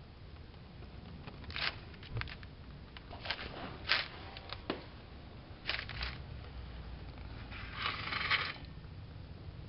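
Rust and loose metal being scraped off a corroded exhaust flex pipe by hand: a series of short, sharp scrapes and clinks, then a longer scrape near the end.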